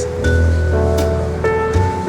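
Background music with sustained held notes over a steady bass line.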